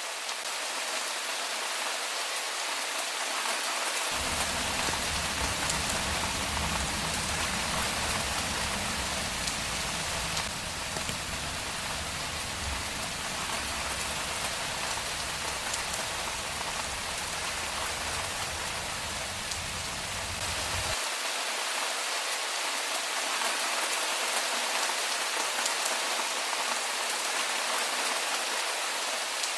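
Steady rain hissing and pattering on surfaces. A low rumble sits underneath from about four seconds in and cuts off abruptly a few seconds past the middle.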